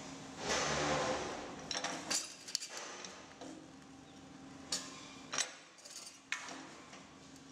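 Steel plate being trimmed into a circle on a metal shearing machine: a loud cut about half a second in, then several sharp metallic clicks and clinks as the blade takes off further pieces, over a faint steady hum.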